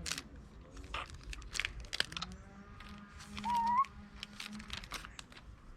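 Foil Pokémon booster pack being torn open and handled, a run of short crinkling crackles. A short wavering whistle-like tone stands out a little past the middle.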